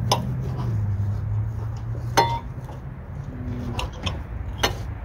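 Cutlery clinking and scraping on plates as steak is cut with knives and forks. There are a few sharp clinks, the loudest about two seconds in with a short ring.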